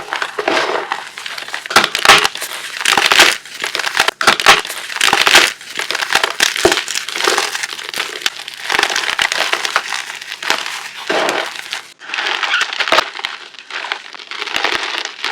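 Chunks of gym chalk being crushed, a dense series of irregular crisp crunches and crumbling. There is a brief break about twelve seconds in.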